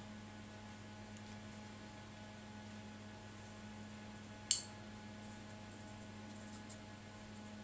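Steady low electrical hum. About four and a half seconds in, one sharp click comes as the printer's circuit board is being picked up and handled.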